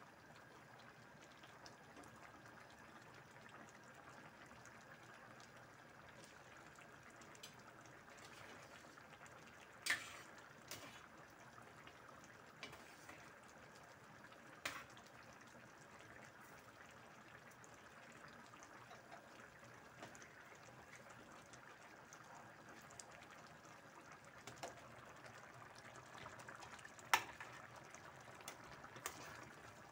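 Coconut-milk stew simmering in a stainless steel pan: faint, steady bubbling, broken by a few sharp clicks, the loudest about a third of the way in and near the end.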